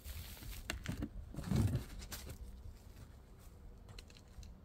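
Footsteps and a foot plant on a tee pad as a disc golfer throws, with one low thud about a second and a half in and a few faint ticks after.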